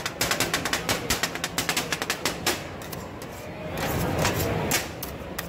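Metal spatula blades chopping and clacking against a steel flat-top griddle in a fast, even clatter of about seven strikes a second. About halfway through the clatter slows to a few scattered knocks and scraping.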